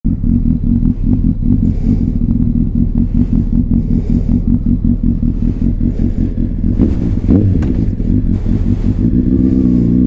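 Honda CBR600RR inline-four with a Leo Vince aftermarket exhaust idling with a fast, uneven pulsing, then a short rise in revs about seven seconds in.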